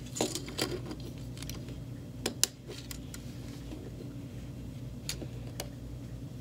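Plastic Lego pieces clicking and tapping as small hands press parts and a wheel onto a little Lego truck, in a few scattered clicks with two close together a little over two seconds in. A steady low hum runs underneath.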